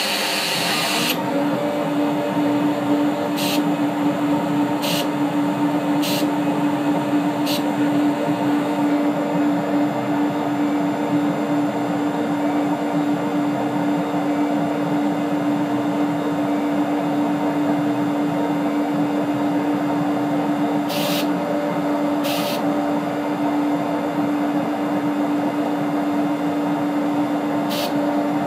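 CNC router spindle running at one steady pitch together with its dust-extraction vacuum while cutting and engraving a fascia panel. A few brief hissy bursts come and go over the steady sound.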